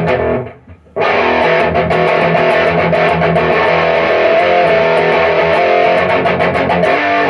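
Electric guitar played through the REVV Northern Mauler high-gain distortion pedal. A heavily distorted chord is cut short, then about a second in comes a run of rapidly picked distorted chords that lasts several seconds and stops just before the end.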